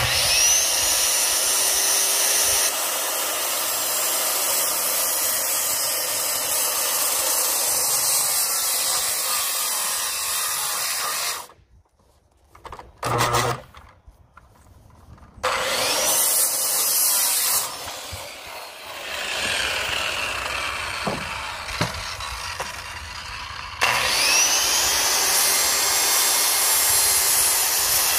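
Power saw cutting notches in a wooden stair stringer. The motor whines up as it starts and cuts steadily for about eleven seconds, then stops for a few seconds. It cuts again in shorter runs and spins up once more for a final loud cut near the end.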